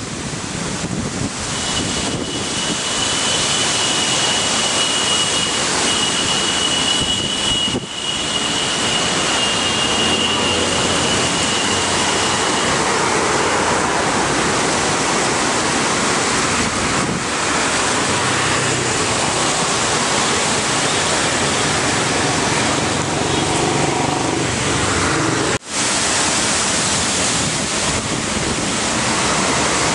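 Storm wind gusting over the microphone and through the leaves of roadside trees, a loud steady rushing. A thin high steady tone sounds for several seconds near the start, and the sound drops out for an instant near the end.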